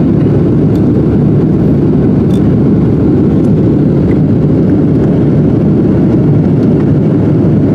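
Steady cabin roar of a Boeing 737-700 in flight, heard from a window seat: its CFM56 engines and the airflow along the fuselage make a loud, even rumble that does not change.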